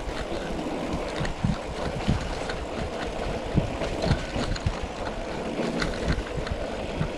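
Mountain bike ridden over rough ground, heard on an action camera: a steady rumble of wind on the microphone and tyre noise, with frequent short knocks and rattles from the bike.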